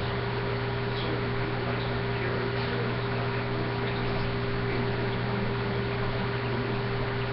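Steady low mechanical hum from a small motor, with a faint higher tone and an even hiss over it, unchanging.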